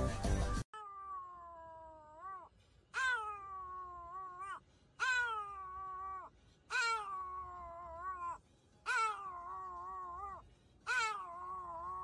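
A Pomeranian howling: six long calls, one about every two seconds, each starting high, sliding down with a waver and turning up briefly at the end.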